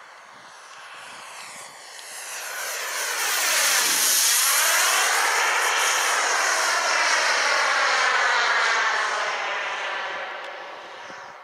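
Wren 160 Pro model gas turbine in an Xcaliber Plus model jet, running as the jet makes a flypast. It swells from about two seconds in, is loudest through the middle, and fades away near the end, with a sweeping, phasing change in tone as it goes by.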